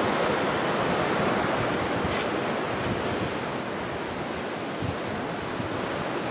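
Ocean surf breaking after a storm: a steady wash of noise that eases a little about three and a half seconds in.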